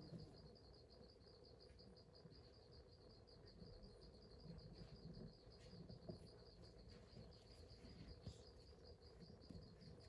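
Faint, steady, rapidly pulsing trill of an insect, cricket-like, with soft low rustling underneath.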